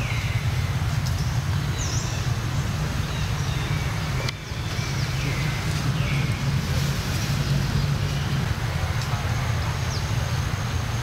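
Outdoor ambience: a steady low rumble with a few short, high, falling chirps, most likely birds.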